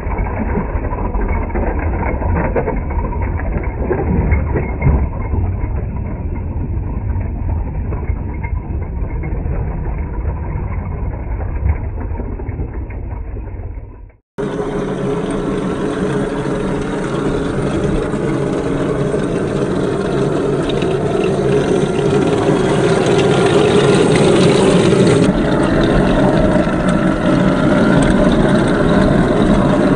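HengLong RC M1A2 Abrams model tank driving over rocks: the steady simulated engine sound from its built-in sound unit, mixed with the drive gearboxes and tracks. The sound drops out briefly about halfway through and comes back brighter and louder.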